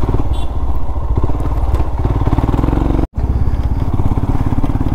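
Motorcycle engine running with a fast, steady exhaust beat. The sound drops out completely for an instant about three seconds in, then picks up again.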